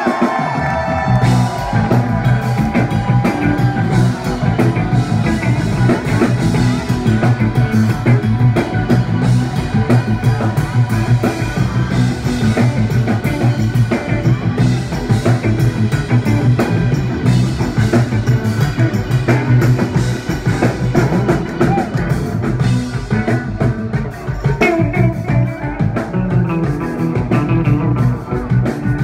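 Live funk band playing a groove on electric bass, drums and electric guitars, heard from among the audience. The bass comes in at the start and the drums join about a second in, then the groove runs on steadily.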